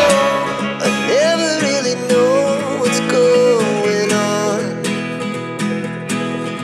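Background music led by acoustic guitar: a gliding melody line over held chords, then steady strumming from about five seconds in.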